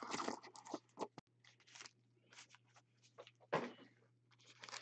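Faint rustling and scraping of a cardboard trading-card hobby box being opened by gloved hands and its card packs taken out, in several short bursts with the loudest about three and a half seconds in.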